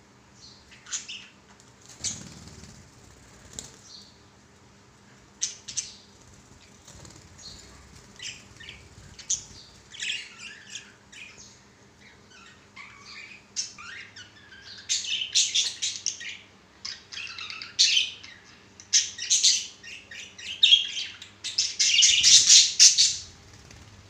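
Several budgerigars chirping and chattering in short, high calls, sparse at first and growing busier and louder through the second half, with the loudest burst of chatter near the end.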